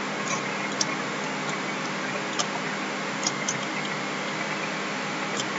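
Computer mouse clicks, about half a dozen scattered single clicks at irregular spacing, over a steady background hiss.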